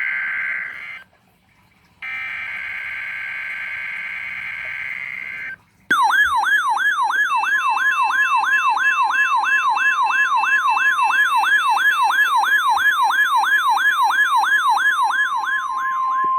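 NOAA Weather Radio test signal. First come two bursts of SAME digital header data, a harsh buzzing warble: one ends about a second in, and the second lasts about three and a half seconds. From about six seconds a loud siren-like alarm sweeps upward over and over, a little under three times a second, and a steady tone near 1 kHz, the warning alarm tone, joins under it a moment later and holds to the end.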